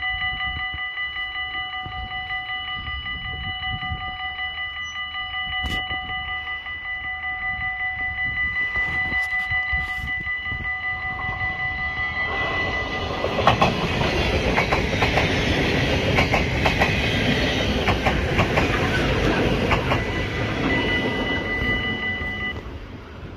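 A level crossing warning bell rings rapidly. About twelve seconds in, an NS ICM (Koploper) electric multiple unit arrives and passes close by at speed, a loud rushing rumble with clattering wheels over the rail joints that goes on for about ten seconds. Near the end the bell stops and the train noise falls away.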